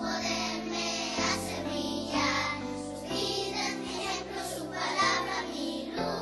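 A children's song: children singing over a steady instrumental backing.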